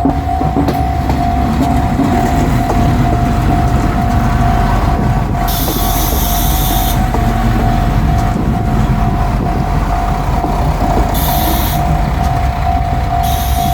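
A KiHa 185-series diesel tourist train running slowly into the station with a steady engine rumble. A level-crossing warning bell rings throughout. Short high-pitched brake squeals come three times, about 6, 11 and 13 seconds in.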